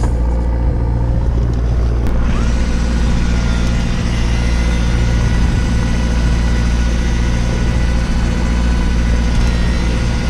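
A fishing boat's engine running steadily at idle, a low even hum. About two seconds in, a thin steady whine joins it.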